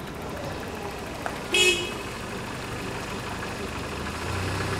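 Street traffic noise with one short car horn toot about a second and a half in. A low engine hum comes in near the end.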